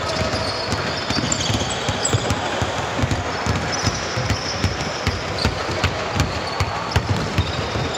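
A basketball bouncing repeatedly on the court during live play, with short high squeaks scattered through, over a steady hum of gym noise.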